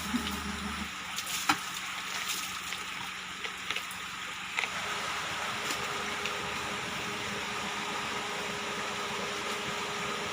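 Water flowing steadily as a continuous rushing, with a few sharp clicks in the first half.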